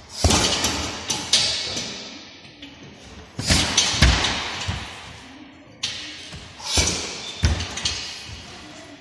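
Karate front kicks (mae geri) thudding into a hanging heavy punching bag, about seven strikes in ones and twos, each trailing off in the echo of a large gym hall.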